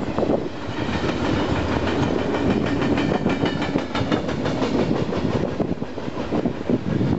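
Double-stack container well cars of a freight train rolling past close by: a steady rumble of steel wheels on rail, with a quick run of rhythmic clicks around the middle.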